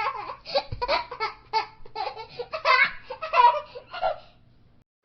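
A young child laughing hard in quick, repeated bursts of giggles. The laughter stops about four seconds in.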